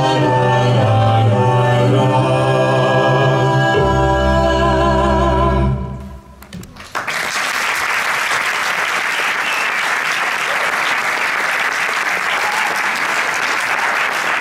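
A choir sings in parts and ends on held notes about six seconds in. An audience then applauds.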